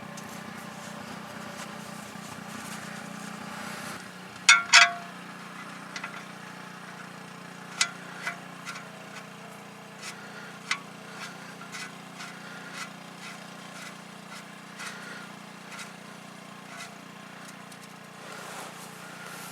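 Handling of a compact tractor's oil drain plug and hand tools: two sharp knocks about four and a half seconds in, then scattered light clicks, over a steady low hum.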